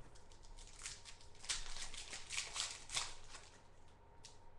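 Shiny foil trading-card pack wrapper crinkling and tearing as it is ripped open: a dense run of sharp crackles for about two seconds in the middle, with scattered softer rustles around it.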